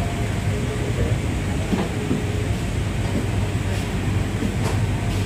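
Bangkok MRT Yellow Line monorail train running on its rubber tyres, heard from inside the car: a steady low rumble, with a couple of faint ticks in the second half.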